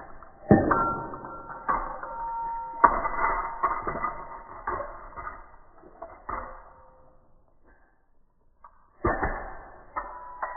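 Sparse plucked-string strums, each a sharp attack followed by ringing notes, about one every second or two, with a short silent gap before two more strums near the end.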